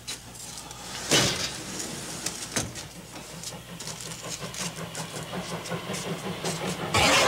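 A wooden lattice sliding door rattles shut with a loud clack about a second in, then a smaller click. After that a low, steady engine hum builds up.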